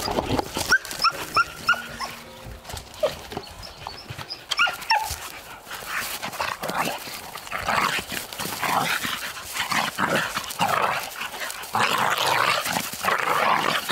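Two dogs play-fighting: a quick run of four short high yelps about a second in, more falling whines around five seconds, then repeated rough, noisy play growls and snarls through the second half.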